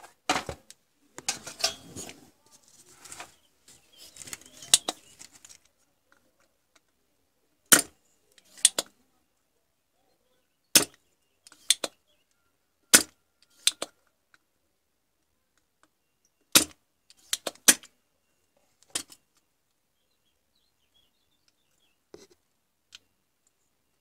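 Handling noise from soldering work on a monitor power board: a couple of seconds of rustling and clatter, then a string of sharp clicks and snaps, many in pairs about a second apart, with silence between.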